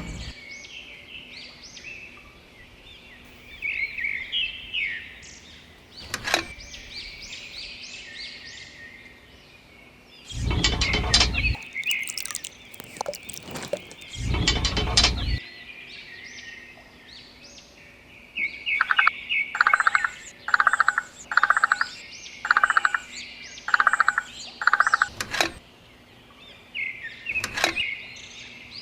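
Small birds chirping and twittering, with a run of about seven quick repeated calls in the latter half. Two brief noisy rumbles come in the middle, and a few sharp clicks are scattered through.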